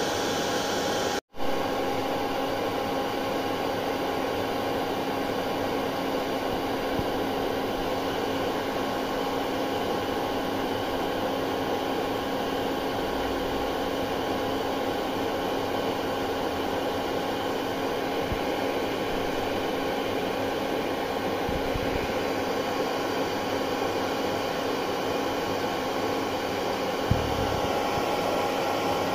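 Hair dryer running steadily, a constant whooshing of air with a few steady humming tones in it, with a split-second dropout about a second in.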